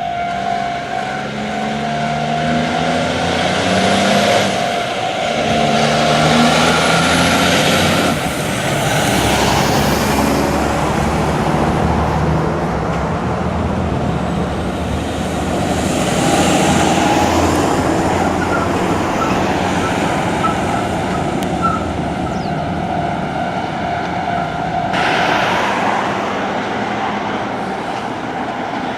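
Heavy double-trailer haul trucks on a private road crossing: a diesel tractor pulls away, its engine pitch climbing again and again through the gear changes, then the rumble and tyre noise swell twice as rigs pass. A sudden hiss comes near the end.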